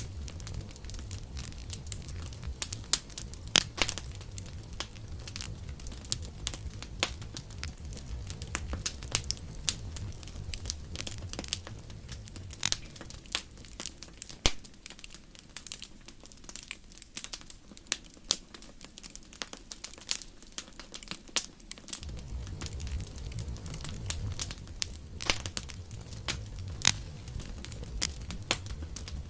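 Wood fire burning, with frequent sharp crackles and pops over a low rumble of flames. The rumble eases for several seconds midway, then returns.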